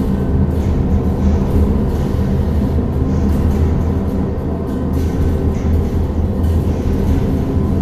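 Tibetan Bon ritual music: a deep, steady drone with many overtones stacked above it, held without a break.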